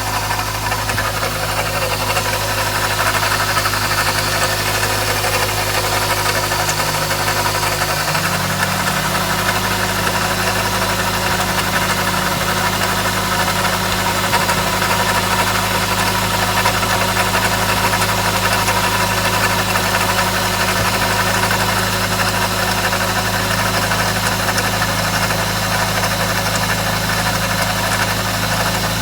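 Toyota bB's 2NZ four-cylinder engine idling with a continuous rattle ("garagara"), which the owner suspects comes from a failing alternator or water pump. About eight seconds in, a low hum steps up in pitch and holds there.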